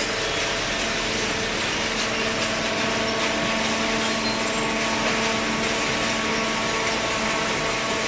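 Waste-paper baling line of feed conveyor and hydraulic baler running, a steady machine drone with several constant hum tones over even noise.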